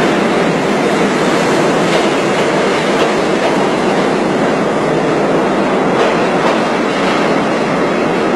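New York City subway train running on the rails: steady wheel-on-rail noise with no break or change.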